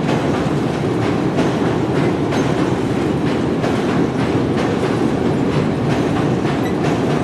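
Train running along the rails: a steady rumble with repeated clicks of the wheels passing over rail joints.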